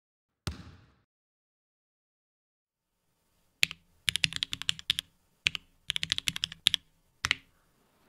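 One thump about half a second in. From about three and a half seconds on come sharp clacks of plastic keycaps: single clicks alternate with two quick rattling runs of many clicks.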